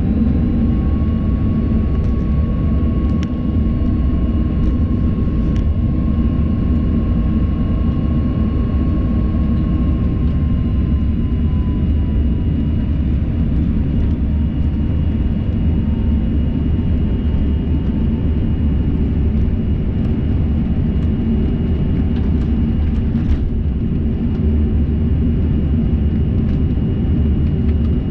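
Cabin noise of a BAe 146-family regional jet taxiing: a steady low rumble from its turbofan engines with a high whine that dips slightly in pitch about ten seconds in.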